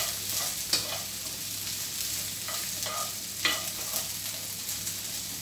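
Cut okra frying in a little oil in a pan: a steady sizzle, with a few sharp clicks of the stirring utensil against the pan.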